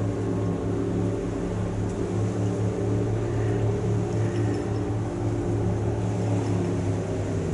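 Car ferry Red Falcon's diesel engines running with a steady low drone, several fixed tones stacked above a deep hum.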